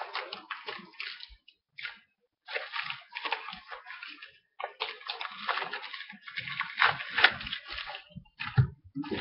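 Plastic packaging crinkling and rustling as it is handled and pulled open, in irregular clusters of crackles with short pauses between them.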